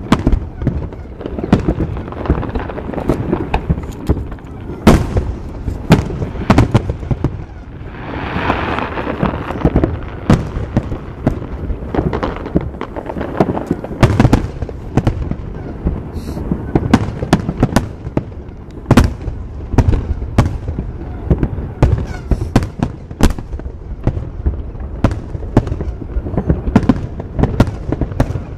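Aerial fireworks display: shells bursting in a dense barrage of sharp bangs, several a second, over a continuous low rumble.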